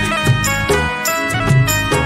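Instrumental break of an Odia devotional song to Sai Baba: a sustained melody over a steady beat, with no singing.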